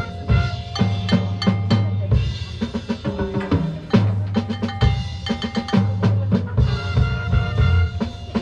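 Marching band playing a drum-heavy passage: snare and bass drums hitting fast, accented strikes over held low notes, with a few sustained higher band tones.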